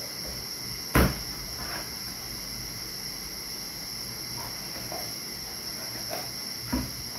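Heavy chopping knife striking through raw chicken onto a wooden table: one loud chop about a second in, a few lighter cuts, and another chop near the end. A steady high chirring of night insects runs underneath.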